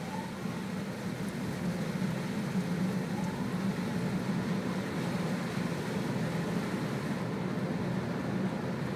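Automatic car-wash machine running, heard from inside the car being washed: a steady low hum with a rushing noise over it.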